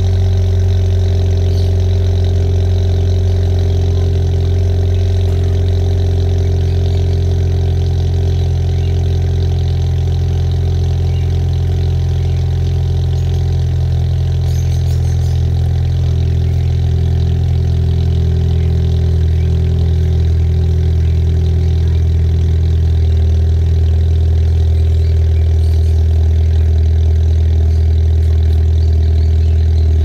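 Honda City's four-cylinder engine running at a steady speed through an aftermarket muffler and quad exhaust tips, a deep, even exhaust drone with no revving.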